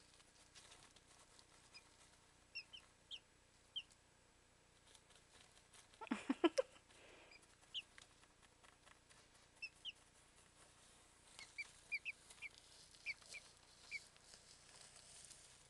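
Two-day-old Pekin chicks peeping: faint, short, high peeps scattered through, with a quicker run of them near the end. About six seconds in there is a brief louder burst of lower-pitched sound.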